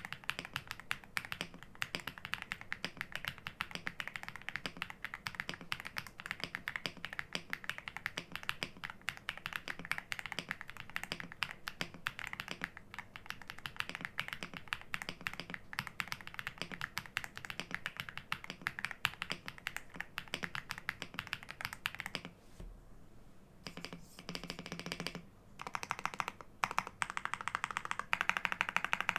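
Lingbao K87 mechanical keyboard with Star Vector switches and double-shot PBT keycaps being typed on fast: a dense, even stream of key clicks. The typing stops briefly about two-thirds of the way through, then picks up again.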